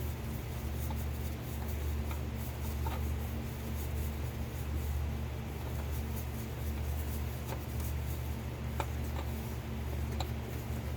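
A steady low hum, with a few faint clicks and rubbing from hands working on a part.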